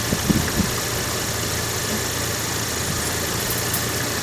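Opel Vectra A engine running in first gear with a jacked-up front wheel spinning freely, giving a steady hum; the hum comes from a worn front wheel hub bearing.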